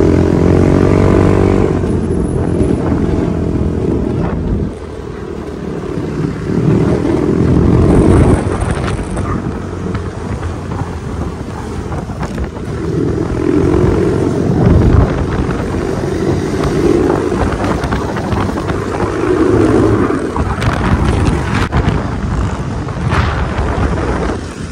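Motorcycle engine running while riding, revving up repeatedly with several rising pitch sweeps. Wind buffets the microphone throughout.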